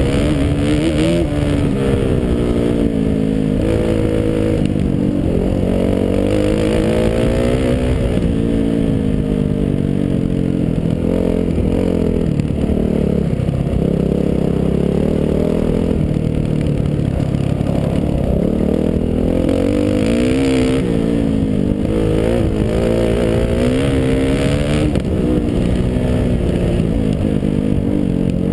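Dirt bike engine heard from on board while riding a trail, its pitch rising and falling repeatedly as the throttle opens and closes through the gears.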